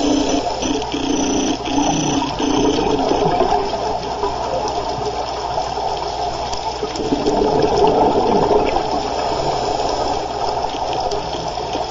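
Underwater water noise on a scuba dive: a continuous rushing gurgle of water and regulator bubbles around the camera, swelling and easing.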